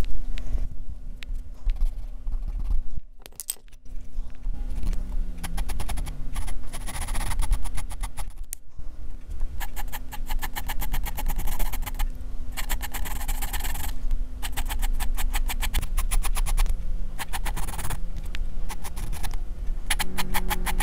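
HB graphite pencil scratching across drawing paper in quick repeated short strokes, picked up close by a microphone worn on the drawing wrist. The strokes pause briefly about three seconds in.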